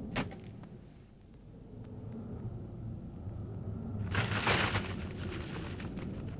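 Animated-film sound effect of air rushing past in mid-leap: a steady low rumble like wind, with a brief sharp sound at the start and a louder rushing whoosh about four seconds in.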